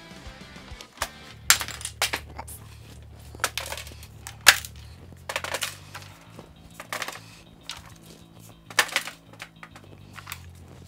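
Loose plastic Lego pieces clattering and rattling in plywood sorting trays as the trays are lifted off the stack and set down, with wooden knocks. The clacks come irregularly over steady background music.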